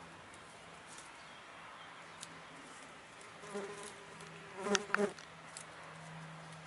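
A flying insect buzzing close by, swelling to its loudest about three and a half to five seconds in, over a faint steady low hum, with a few light ticks.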